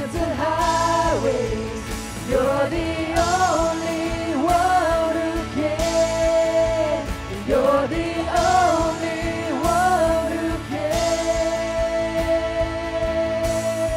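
Live worship band: a man and a woman singing together into microphones over electric bass and drums, with a long held note near the end.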